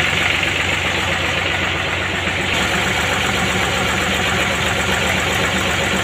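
A lorry's engine idling steadily, with an even low throb.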